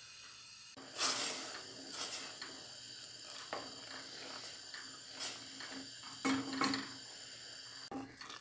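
Wooden spoon stirring soft, swollen rice in a stainless steel pot over a faint steady hiss. It gives scattered scraping strokes and light knocks against the pot, the loudest near the end. The rice has simmered until it absorbed its water.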